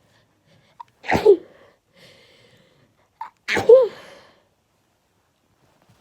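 A woman sneezing twice in a sneezing fit, the sneezes about two and a half seconds apart. Each one is sudden and loud with a voiced cry in it, preceded by a quick catch of breath, with faint breathing between them.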